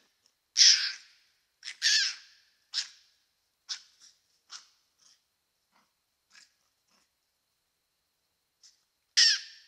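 A series of short, harsh animal calls, about a dozen, irregularly spaced. They are loudest at the start and again near the end, and fainter and sparser in between. They come from a cat and a young fox facing off.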